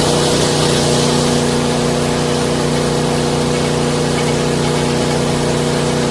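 SuperHandy mini wood chipper-shredder's 7 HP engine running steadily at speed, a constant hum with a loud hiss over it.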